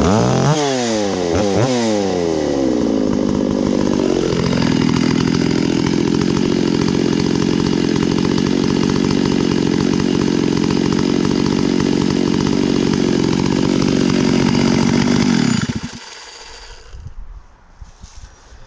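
Stihl 066 Magnum two-stroke chainsaw, just started warm, running high and falling in pitch over the first four seconds, then idling steadily. It cuts off suddenly near the end. The idle is set a little high, enough that the chain spins a bit.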